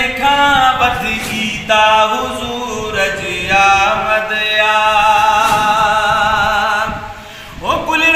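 A man singing a Sindhi naat in a chanting style, drawing out long notes with a wavering vibrato in the middle. Near the end his voice drops away briefly, then slides up into the next line.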